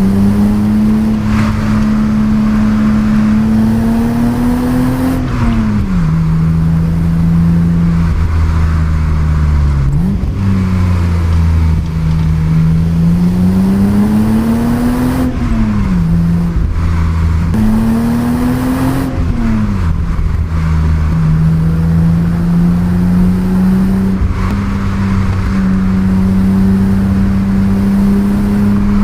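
Stock 1988 BMW 325i E30's 2.5-litre straight-six engine through its standard exhaust, pulling up through the revs and dropping back sharply three times, then holding a steadier, slowly rising note.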